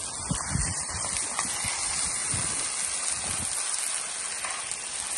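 Goose meat, onion, corn and eggs sizzling steadily in a frying pan on high heat as it is stirred with a spoon, with a few soft low bumps in the first few seconds.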